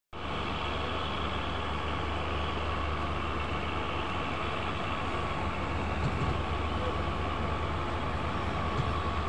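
Moving passenger train heard from an open coach door: a steady rumble of the wheels running on the rails, with a couple of brief knocks, one about six seconds in and one near the end.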